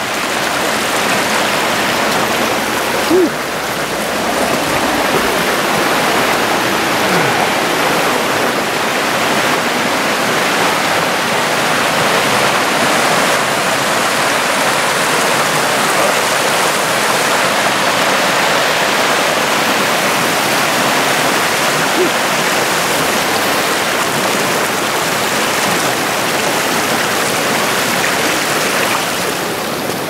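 Shallow mountain creek rushing steadily over rocks and small riffles, with one brief knock about three seconds in.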